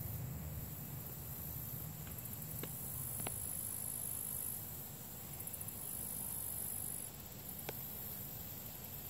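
High, thin insect trilling that comes and goes in stretches, pulsing in places, with three faint clicks.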